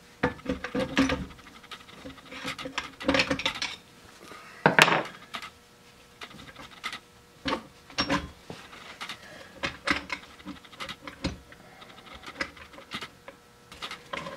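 Metal clinks, knocks and scraping from a Polaris Magnum 500 ATV transmission being taken apart by hand, as the case halves and gears are shifted about. There is one sharper knock about five seconds in.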